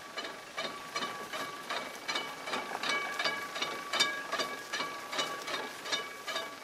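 Rusty old military jeep being pushed by hand, its metal parts squealing at a steady pitch over a quick clicking rattle, about three or four clicks a second.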